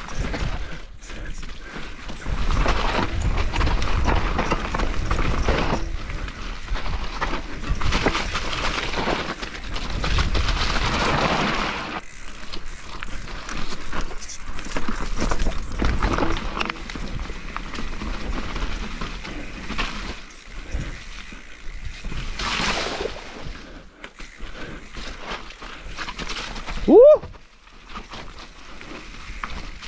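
Mountain bike (2019 YT Capra) descending a very slippery trail: tyres rolling and sliding over dirt and the bike rattling, in uneven surges. About 27 s in, one short rising squeal is the loudest sound.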